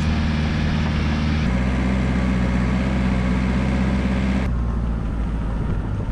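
Land Rover Defender 110's 2.4 TDCi four-cylinder diesel engine running at low, steady revs as the truck crawls along a snowy gravel track, with tyre and road noise over it. The sound shifts abruptly twice as the shot changes between outside cameras.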